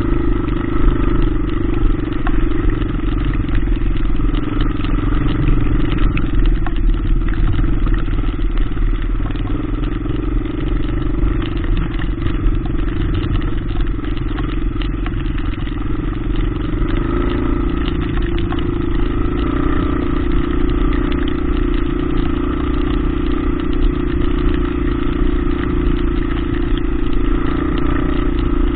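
Single-cylinder four-stroke trail motorcycle engine running steadily at low speed, its note stepping up slightly about halfway through.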